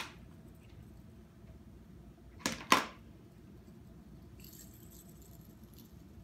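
Small metal jingle bells clinking and jingling as they are handled, with two sharp knocks close together about two and a half seconds in.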